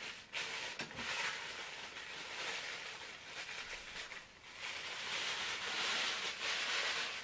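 Thin plastic wrapping bag rustling and crinkling as it is pulled up off a statue bust and then crumpled in the hands, louder in the last couple of seconds.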